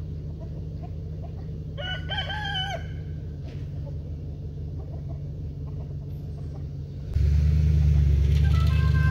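A rooster crows once, about two seconds in, over a steady low engine hum. A little after seven seconds the low rumble suddenly gets much louder, and near the end a tune of short, stepped notes begins.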